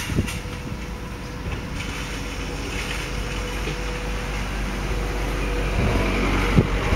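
Steady low background rumble with a faint constant hum, swelling slightly toward the end, with a few sharp clicks.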